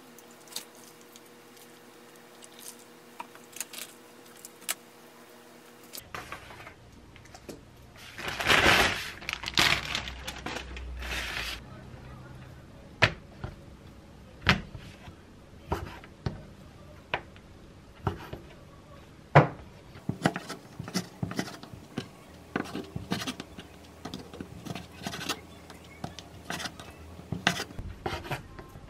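A chef's knife slicing raw beef on a wooden cutting board: a string of sharp knocks as the blade meets the board, about one a second and then quicker near the end. Before that comes a few seconds of loud rustling, and at the start only faint pen-and-paper sounds.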